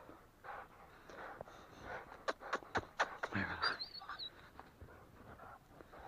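Breathing noises in repeated puffs, with a quick run of four or five sharp clicks about two seconds in and a brief wavering high whistle just after.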